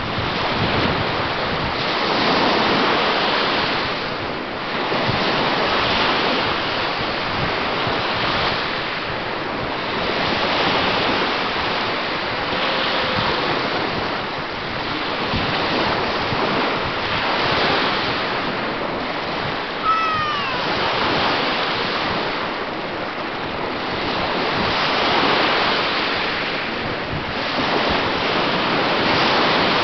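Small Lake Michigan waves breaking and washing up a sand beach, swelling and ebbing every couple of seconds, with wind on the microphone. About two-thirds of the way through comes one short, high, falling squeak.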